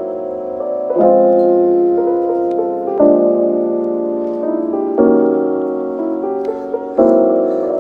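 Background music: a mellow piano track, with a new chord struck about every two seconds and left to ring.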